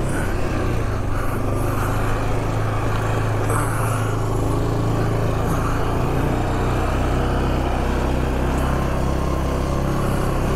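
2008 Yamaha Grizzly 450 ATV's single-cylinder four-stroke engine running steadily under load in low range, crawling over rocks, its note shifting slightly with the throttle.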